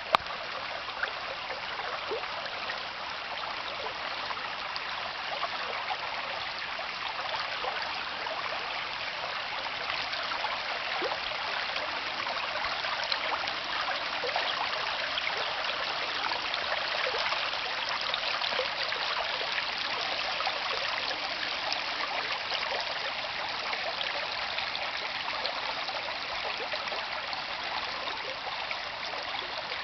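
Pescadero Creek's water running and babbling over rocks, a steady rushing with a fine trickling texture.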